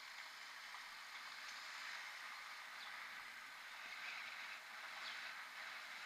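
Steady hiss of tyre and wind noise from a mountain bike rolling along a stone-paved street, growing slightly louder.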